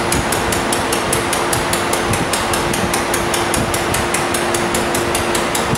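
Robot-mounted laser welding head welding a steel seam: a steady hiss with even, rapid ticking about five times a second over a constant hum.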